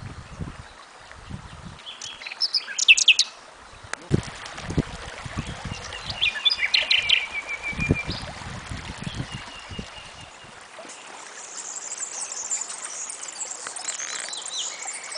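Small birds chirping, with a short trill about halfway, over low rumbles; in the last third a steady high hiss of shallow stream water.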